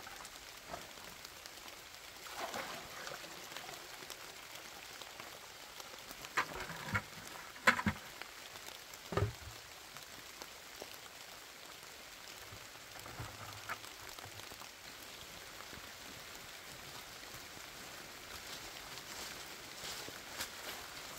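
Plastic rain-collection buckets and their lids being handled: a few sharp plastic knocks and clatters around the middle, then a dull thud, over a steady hiss of light rain.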